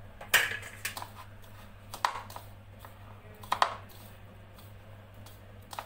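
A handful of sharp clinks and taps of utensils against a plate while ghee is added to ground sesame mixture, with soft scratchy rustling of the mixture being worked by hand between them. A low steady hum runs underneath.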